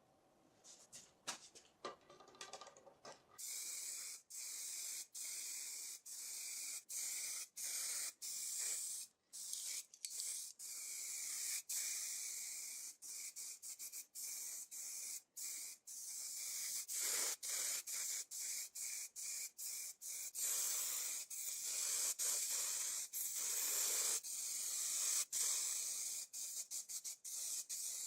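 Paint spray hissing in long runs, cut by many abrupt short breaks, after a few light clicks and knocks at the start.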